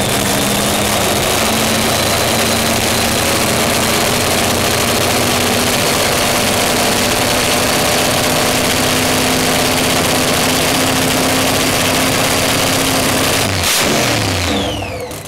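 A loud engine held at a steady pitch; about 13.5 seconds in there is a sharp break, its pitch falls away, and it fades out.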